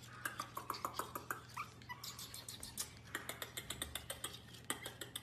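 Pomeranian puppy giving a few short, high whimpers in the first two seconds, over rapid clicking and tapping at about five or six a second as it works at the wooden bars of its pen.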